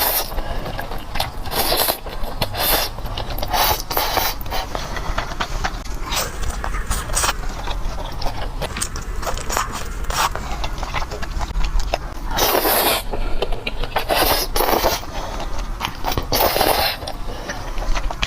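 Close-miked eating of spicy noodles: slurping and chewing, with many short wet clicks and a few longer slurps in the second half.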